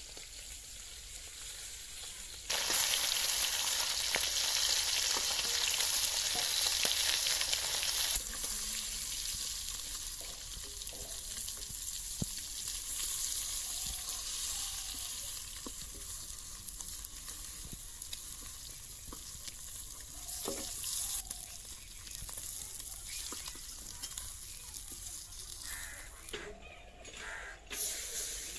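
Pieces of fish frying in hot oil in an iron kadai over a wood fire. There is a loud sizzle for about five seconds, starting a couple of seconds in, then a softer, steady sizzle, with occasional clicks and scrapes from a metal spatula turning the fish.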